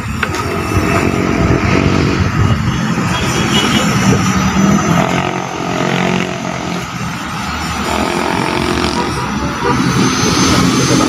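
Busy road traffic, mostly motorcycles and cars: engines passing continuously, their hum swelling and fading.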